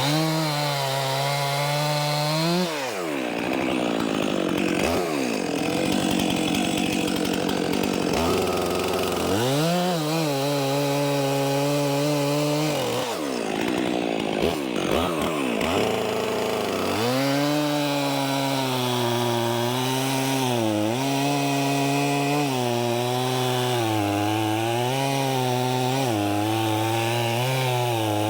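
Stihl MS 400 C two-stroke chainsaw cutting through logs, the engine held at high revs and pulled down under load in the cuts. The revs fall and rise again several times between cuts.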